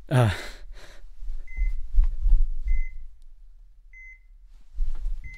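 Hospital heart monitor beeping, a short steady tone about every second and a quarter, with low rumbling handling noise between the beeps.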